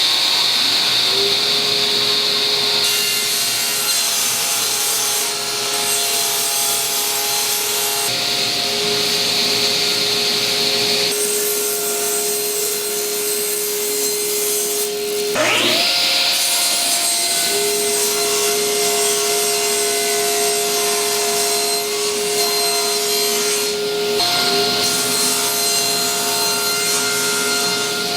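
Power saw cutting Baltic birch plywood into small pieces: the motor spins up with a rising whine and runs steadily as the blade goes through the wood, then spins up again about halfway through for the next cuts.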